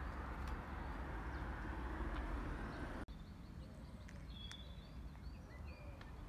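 Faint outdoor background noise with a low rumble, which drops off abruptly about three seconds in; small birds then chirp several times over a quieter background.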